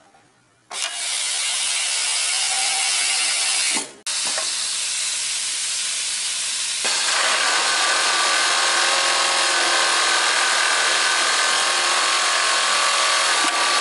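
Kingtex CTU9311 direct-drive, high-speed, top-feed cylinder-bed coverstitch machine stitching a hem, running with a dense, steady whirring hiss. It starts about a second in, stops briefly around four seconds, then runs on, a little louder from about seven seconds.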